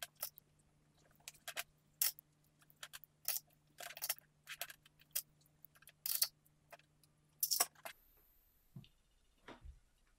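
Plastic sewing clips being snapped onto layered fabric edges one after another: an irregular run of sharp clicks that stops about eight seconds in.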